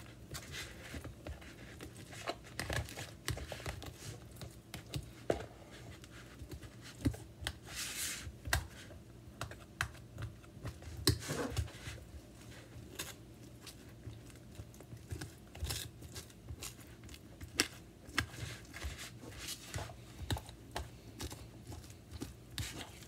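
Fork mashing avocado in a plastic food container: irregular clicks and taps of the metal fork against the plastic.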